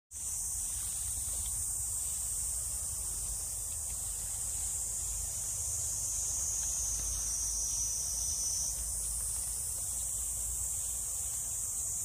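Steady, high-pitched chorus of insects in the grove, unbroken throughout, with a second slightly lower insect note joining for a couple of seconds near the middle. A faint low rumble lies underneath.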